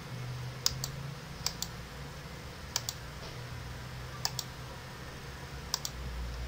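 Computer mouse button clicked about five times, each click a quick double tick of press and release, over a low steady hum.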